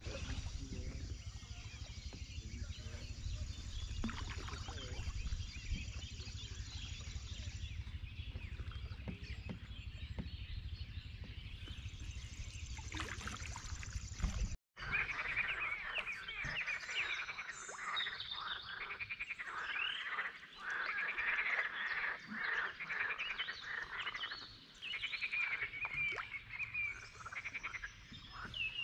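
Frogs croaking in chorus: rapid pulsed calls that become loud and dense after a sudden break about halfway through. Before the break, a low steady rumble lies under fainter calls.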